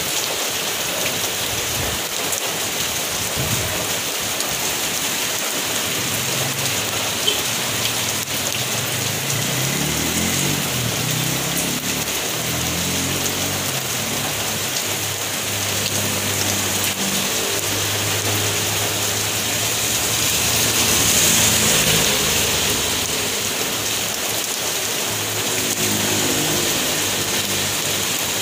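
Heavy rain pouring steadily onto a wet road, a constant even hiss.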